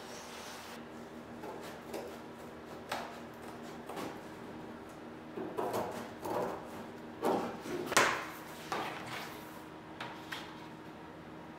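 Cardboard being cut with hand snips and handled: a run of short crunching snips and rustles, busiest around the middle, over a faint steady hum.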